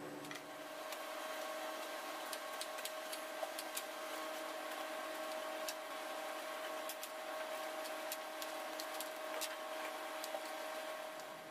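Knife chopping vegetables on a plastic cutting board: light, irregular clicks, several a second at times, over a steady hiss and hum.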